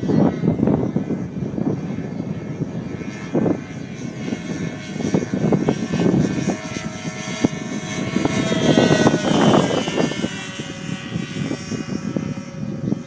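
Twin-engine RC P-38 Lightning model in flight, its engines and propellers droning steadily. The engine tone slides up and then down in pitch around the middle.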